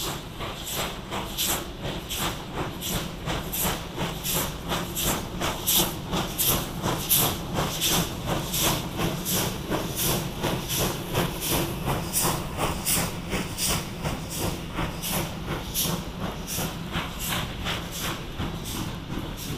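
Steam locomotive working a passenger train, its exhaust chuffing in a steady rhythm of about two beats a second.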